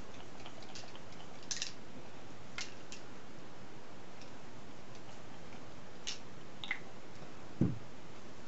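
A few light clicks and taps from small objects being handled, over a steady hiss, with one dull thump near the end, the loudest sound, as of something set down on a table.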